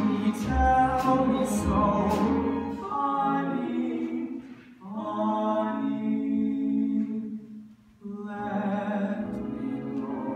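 Stage musical number: a small vocal ensemble singing long held chords in harmony behind a soloist, with short breaks between phrases about four and eight seconds in.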